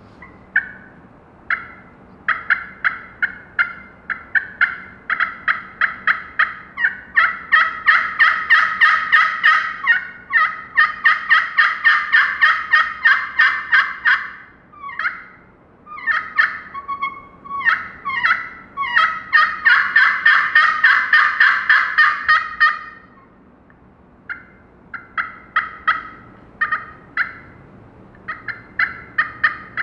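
Turkey pot call with an aluminum playing surface and glass soundboard, played with a wooden striker: series of yelps and fast runs of short, raspy, high notes imitating a wild turkey hen. The runs come in long strings with a short quiet gap a little over three quarters through.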